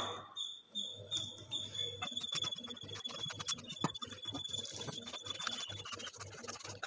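Water poured from a steel pan into a steel bowl of flour batter and into a steel measuring cup, then hands squishing and mixing the wet dough. A thin, high steady tone runs behind it and stops about six seconds in.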